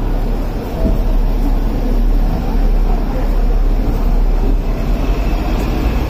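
Hong Kong double-decker tram running along the street, a steady loud rumble of the car on its rails heard from inside on the upper deck, with double-decker buses running alongside.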